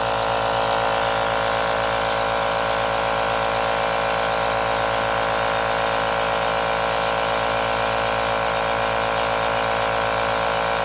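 MiniMate nebulizer compressor running: its shaded-pole motor drives the small air pump and cooling fan, giving a steady mechanical buzzing hum that does not change.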